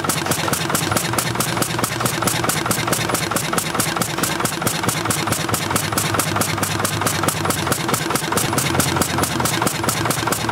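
Old stationary engine running steadily, an even, rapid beat of strokes several times a second.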